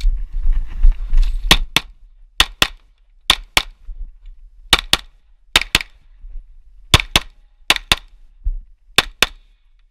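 Pistol shots fired in quick double-taps during a USPSA stage: about eight pairs of sharp cracks, each pair about a quarter second apart, with about a second between pairs. The shots are preceded by a second and a half of low rumbling noise.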